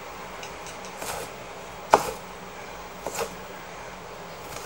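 Cleaver slicing a Scotch bonnet chilli into rings on a chopping board: three sharp knocks of the blade, about a second apart, the loudest about two seconds in.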